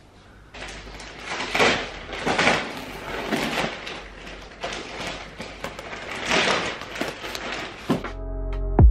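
Plastic wrap and cardboard packaging rustling and scraping in irregular swells as flat-pack sofa parts are cut open with a knife and handled. Music with steady chords comes in near the end.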